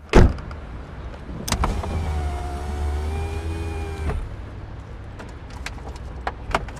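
A thump right at the start, then a car's electric power window motor whirs steadily for about two and a half seconds and stops abruptly, followed by a few light clicks.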